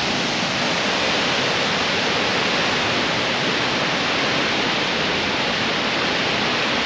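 Waterfall plunging into a rock gorge: a loud, steady rush of falling water.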